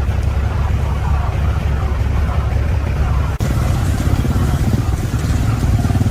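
Heavy truck's diesel engine running steadily, with a brief dropout a little past halfway after which it carries on.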